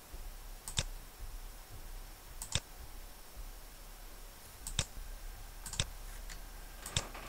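Computer mouse clicking: about five short, sharp clicks spaced a second or two apart, some doubled as the button is pressed and released.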